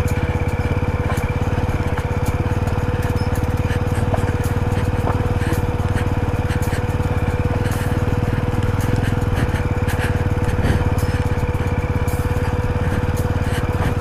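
Jawa 42 2.1 single-cylinder motorcycle engine running steadily under way on a rocky dirt track, with scattered sharp clicks and knocks from stones and gravel under the tyres.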